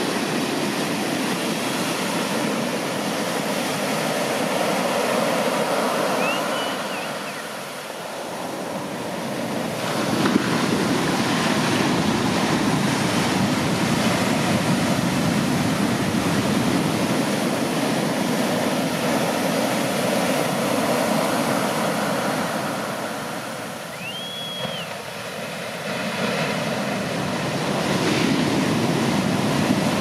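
Large shorebreak waves breaking and washing up the beach: a continuous rush of surf that swells and eases as waves come in, with a sudden louder crash about a third of the way in.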